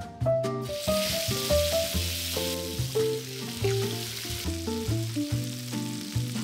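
Marinated chicken thighs sizzling in hot oil as they are laid into a frying pan; the sizzle starts about half a second in and dies down after about four seconds. Light background music plays throughout.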